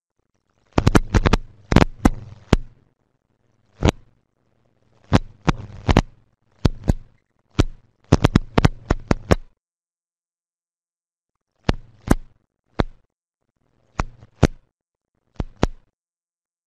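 Clusters of sharp clicks from a computer mouse being clicked close to the microphone, with a low mains hum that comes in along with each cluster and cuts out between them.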